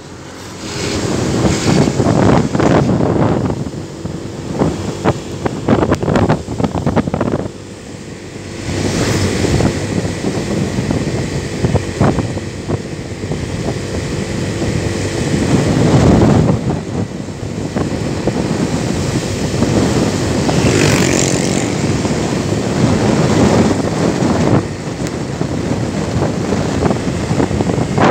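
Wind rushing and buffeting over the microphone of a moving vehicle, rising and falling in gusts, with the vehicle's engine running underneath.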